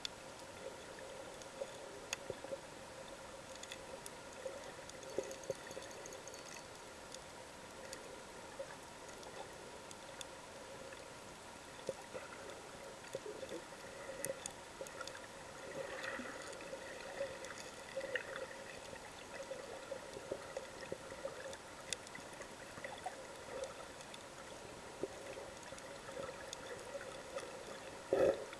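Underwater ambience: a steady muffled hiss with faint clicks and crackles scattered throughout, and one brief louder knock near the end.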